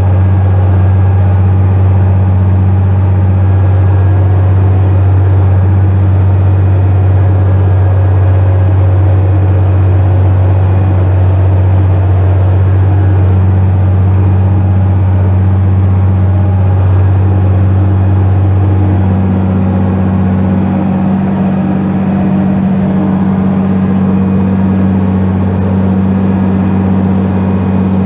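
Farm tractor engine running steadily under work, a loud constant drone whose tone shifts slightly about two-thirds of the way through.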